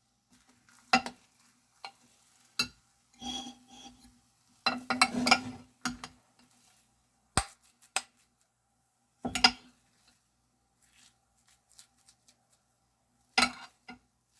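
Kitchen utensils knocking and scraping against dishware in a series of short, irregular clinks, some bunched into brief scraping runs, with a faint ring from the dish between strokes.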